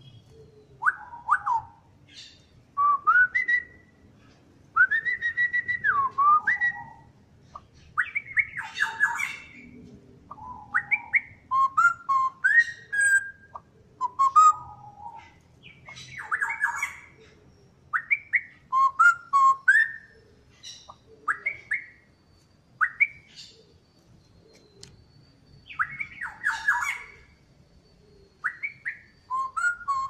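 Straw-headed bulbul singing: short whistled phrases that rise and fall in pitch, given in bursts with brief pauses between them.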